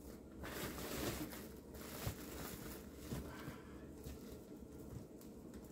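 Faint rustling and handling noise of a flexible foil-wrapped duct being worked onto its connector, with a few light clicks.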